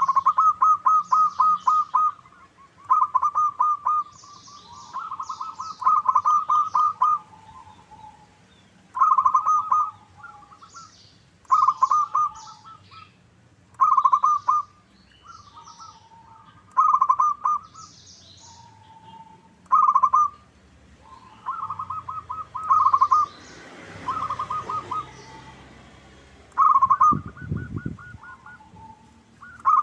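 Zebra dove (perkutut) song: repeated phrases of fast, staccato cooing notes, each phrase a second or two long and ending in a short lower coo, coming every two to three seconds. Fainter high chirps of small birds sound between the phrases, and there is a brief low rumble near the end.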